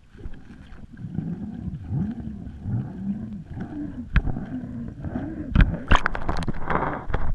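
Muffled underwater sound of a GoPro in its waterproof housing being hauled up through dock water on a magnet-fishing rope: a low wavering hum that rises and falls over and over, then a few sharp knocks and a rush of splashing as the camera breaks the surface near the end.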